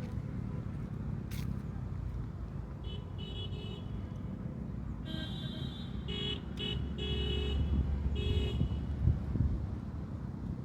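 Road traffic running with a low rumble, and a vehicle horn honking in a string of short blasts from about three seconds in.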